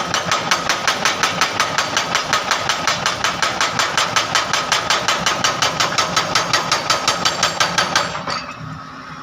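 Excavator-mounted hydraulic breaker hammering asphalt in a rapid, even rhythm of about seven blows a second over the running engine. The hammering stops about eight seconds in, leaving the engine running quieter.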